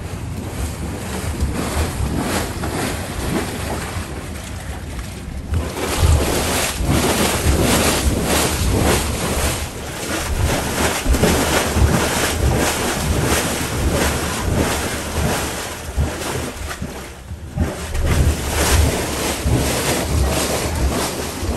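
Floodwater rushing and churning through a grated drain chamber, a steady loud wash of water, with wind buffeting the microphone.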